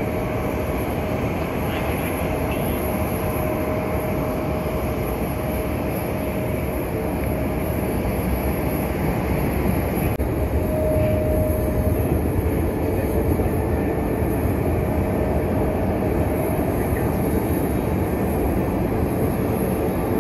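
Jet engines of a taxiing Airbus A321neo: a steady rumble with a faint held tone, swelling slightly about ten seconds in.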